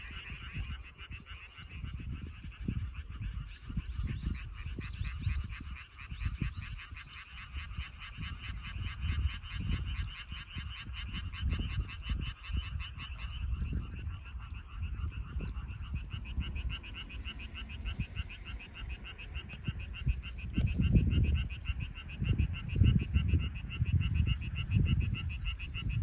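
A chorus of frogs calling, a dense, rapid pulsing that runs on without a break. Gusts of low rumbling come and go underneath, louder near the end.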